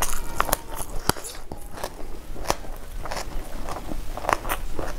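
Close-miked chewing of a mouthful of food: irregular crunchy clicks and crackles, several a second.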